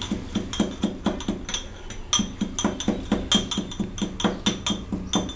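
Brass pestle pounding cumin seeds in a brass mortar: a steady run of sharp metallic strikes, about four or five a second, each with a short ring.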